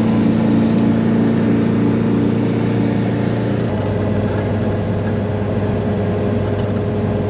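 Engine of a 1983 Toyota Sunrader motorhome droning steadily at highway cruising speed, about 70 mph, heard from inside the cab over road noise. The drone shifts slightly in pitch about halfway through.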